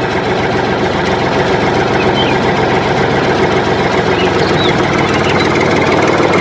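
Diesel tractor engine running steadily, with a few faint bird chirps over it.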